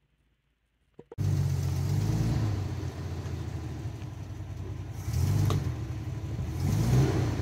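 A truck's engine running at low revs, starting abruptly about a second in after near silence, with the revs rising twice (about 5 and 7 seconds in) as the truck is eased about to level it.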